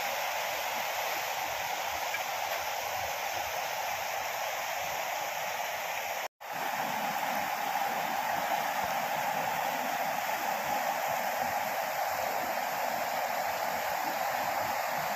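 Steady rushing of water in a heavy monsoon downpour, even and unbroken, with a momentary cut-out about six seconds in.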